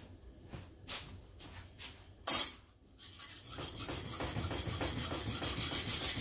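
A few light handling knocks and one sharp clack about two seconds in, then a plane blade scraped back and forth in quick, even strokes, flat on its back on a coarse sharpening stone: the back being reground to take off rust marks and a wheel-honed finish.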